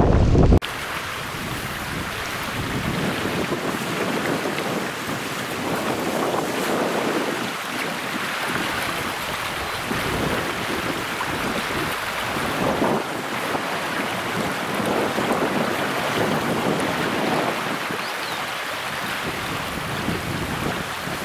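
A loud low rumble stops suddenly about half a second in. After it comes the steady rush of a fast-flowing river over stones.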